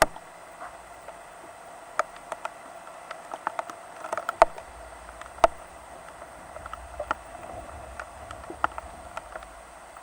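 Rain falling: a steady hiss with irregular sharp drip taps scattered through it, the loudest about four and a half seconds in.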